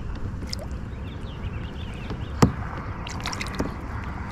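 Water sloshing and dripping at the side of a kayak as a bass is let go from the hand and swims off, with one sharp knock about two and a half seconds in.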